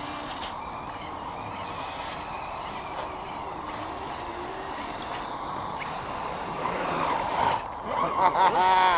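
Electric motors and gears of radio-controlled crawlers and Kyosho Blizzard snow vehicles running steadily. Near the end, louder, comes a quick run of short pitched sounds, each dipping in pitch.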